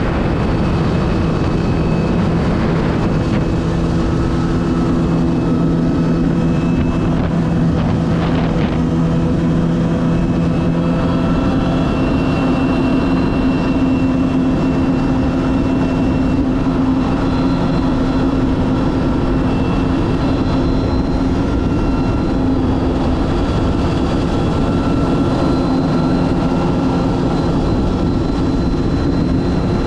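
Jet ski engine running steadily under way, over a constant rushing noise. Its note changes slightly about twelve seconds in.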